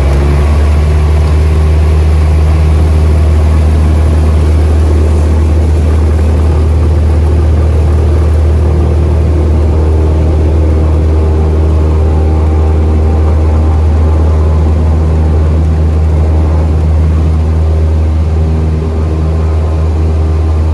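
Cessna 182 single-engine piston engine and propeller running at steady high power, heard from inside the cabin as a loud, even drone with a deep hum, during the takeoff roll on a grass runway. The level eases slightly near the end.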